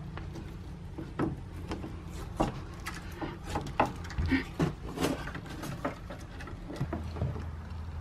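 Irregular clicks, taps and rustles of sheathed electrical cable being handled and worked into a metal outlet box, over a steady low hum.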